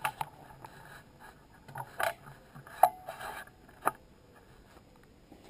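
Handling noise: several short, sharp clicks and knocks with faint scraping, the loudest a little under three seconds in, followed by a brief ring.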